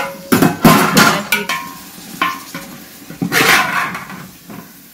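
Metal spoon knocking and scraping against a hammered copper chembu while stirring thick mutton masala: a run of clinks in the first couple of seconds, then a longer scrape about three seconds in.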